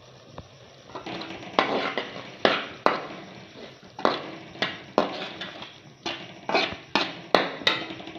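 A metal utensil knocking against a cooking pot while cooking, about a dozen sharp knocks at an uneven pace, coming faster in the second half.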